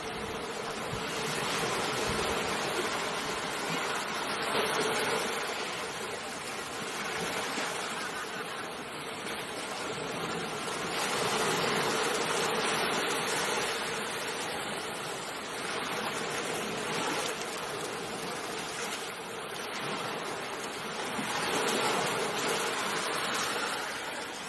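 Ocean waves surging and washing on a shore: a continuous surf hiss that swells and subsides several times.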